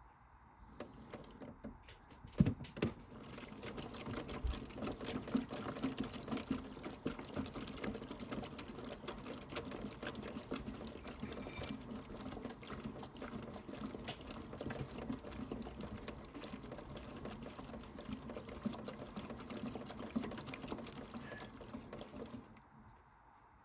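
Toy Bosch Logixx 8 washing machine running a wash cycle: a busy, rattly whirring with a watery pouring and sloshing sound. It starts with a sharp click about two seconds in and stops shortly before the end.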